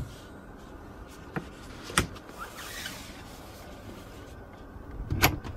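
Handling noise: a few sharp clicks, the clearest about two seconds in, a brief soft rustle, and a knock near the end.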